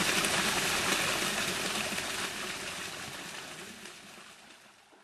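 Steady wash of sea surf breaking on a beach, fading out gradually over the last few seconds.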